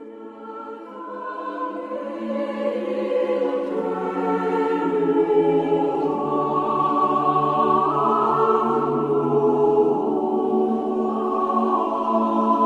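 Church choir singing a slow chant in long, held chords, fading in over the first couple of seconds.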